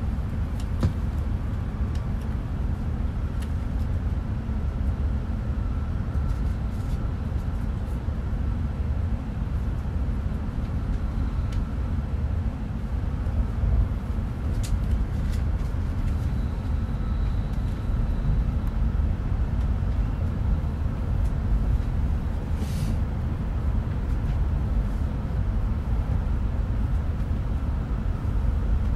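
Cabin running noise of an E5-series shinkansen at speed: a steady low rumble with a faint steady whine. A few brief clicks come through.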